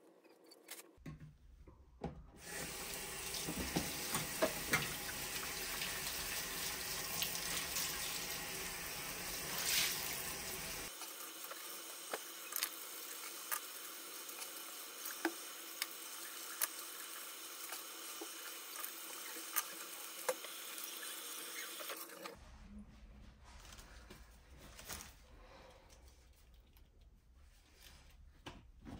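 Bathroom sink faucet running into the basin while baby clothes are rubbed and rinsed by hand under the stream, with scattered small splashes and clicks. The water comes on about two seconds in and stops about twenty-two seconds in, leaving only faint handling of wet fabric.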